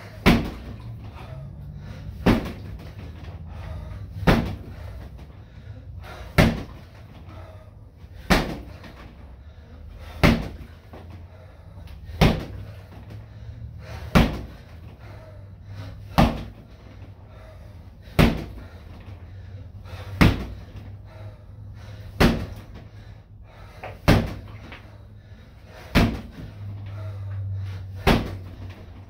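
Kicks landing on a BOB freestanding mannequin punching bag: a sharp slap about every two seconds, evenly paced.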